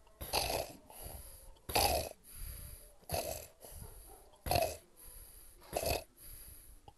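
A man snoring in a steady rhythm: five rasping snores, about one every second and a half, with quieter breaths between them.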